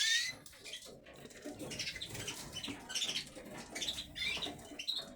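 Caged canaries chirping in short, high calls, some sweeping upward, with wings fluttering.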